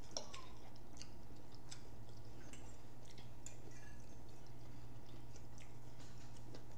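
Faint chewing and mouth sounds with scattered light clicks of metal forks against plates, over a steady low hum.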